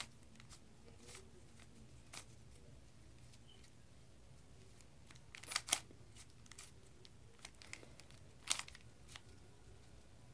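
Faint, irregular plastic clicks of a Rubik's Cube's layers being turned by hand, with a few louder clacks about halfway through and again near the end.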